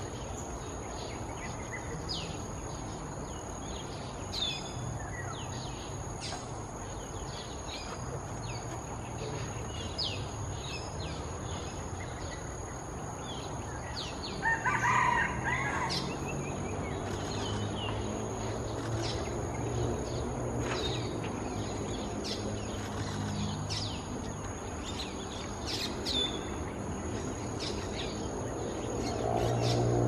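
Wild birds chirping and calling, with short high chirps scattered throughout and one louder call of about a second and a half about halfway through, over a steady high-pitched drone.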